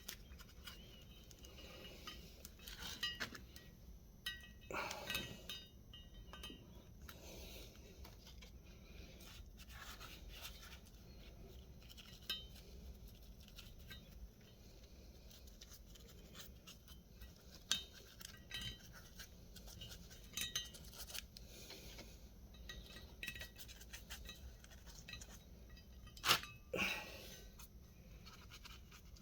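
Scattered light clinks and taps of handled tools and metal parts, with brief bouts of scraping or brushing and a few louder knocks.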